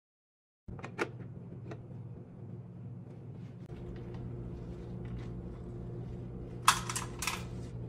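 Popcorn kernels poured from a plastic bowl into the chamber of a hot air popcorn maker, rattling in a quick cluster of hard strikes near the end, with a couple of lighter clicks about a second in. A steady low hum runs underneath.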